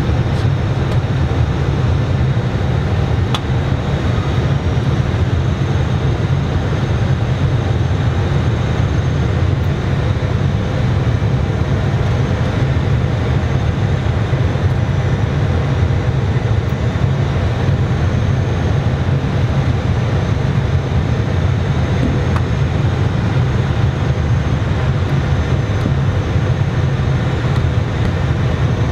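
Airbus A320 cockpit noise on final approach: a steady, loud low rumble of airflow and engines that does not change.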